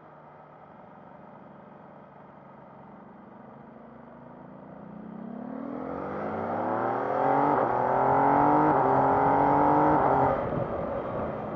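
MV Agusta Brutale 800's three-cylinder engine pulling hard under full throttle, its pitch climbing in steps as it shifts up. The throttle is shut suddenly near the end and the note falls away.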